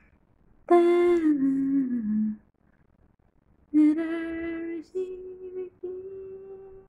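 A voice humming a slow tune: a falling phrase about a second in, then a few long held notes later on.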